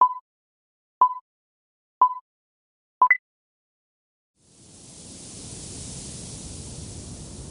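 Pomodoro timer countdown: three short beeps a second apart, then a fourth that steps up to a higher pitch, signalling the start of a study session. About a second later, a steady wind-like hiss fades in.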